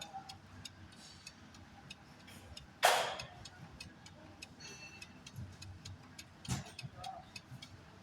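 Faint, irregular light ticking, with a short hiss about three seconds in and a brief dull knock at about six and a half seconds.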